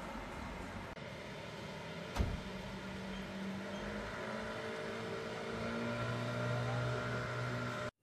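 Road traffic engine noise: a vehicle engine running on the street below over a steady background hiss, its hum growing louder in the second half. One sharp knock about two seconds in.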